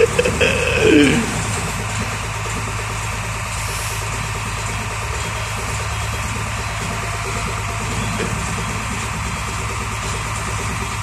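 Hino tronton truck's diesel engine idling steadily, heard from beside the cab. A short sliding sound about a second in.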